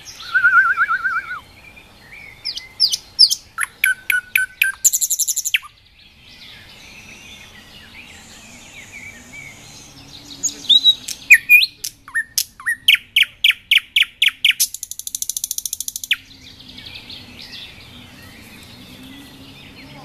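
Common nightingale singing three loud phrases, separated by pauses. The phrases mix whistled notes, fast runs of repeated notes and dry, high buzzy trills.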